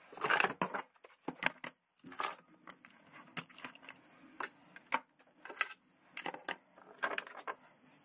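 Hard plastic radio-control gear being handled and set down on a cutting mat: an irregular run of clicks, knocks and short rustles.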